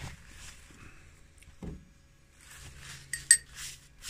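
A metal spoon scraping in a ceramic bowl, with one sharp ringing clink a little past three seconds in that is the loudest sound; a soft thump about one and a half seconds in.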